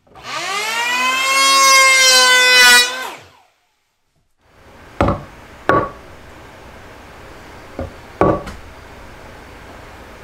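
RYOBI ML-83S electric hand planer starting up with a rising whine, running loud and high for about three seconds, then falling away. After a second of quiet come a few sharp knocks and taps of a steel rule set down on the wooden board.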